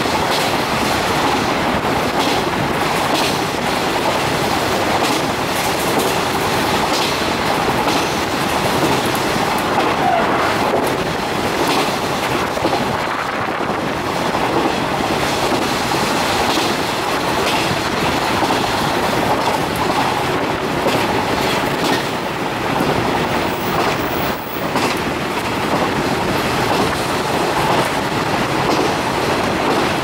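A JR 415 series electric multiple unit running at speed, heard from inside the car: a steady running noise of wheels on track, with the clickety-clack of rail joints.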